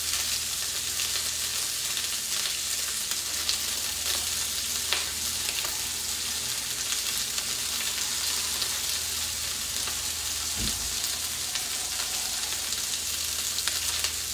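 Whole fresh sardines frying and browning in hot pans: a steady sizzle with a few sharper crackles.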